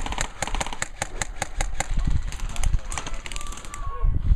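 Airsoft electric rifles firing on full auto in rapid bursts of sharp snaps, several a second: a long burst at the start and a shorter one about three seconds in.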